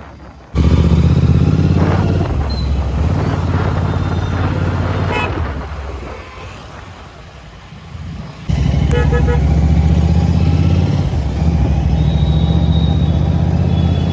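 Riding a motorcycle in road traffic: a steady low rumble of engine and wind, which drops away for a few seconds in the middle. Short horn toots sound about five seconds in and again about nine seconds in.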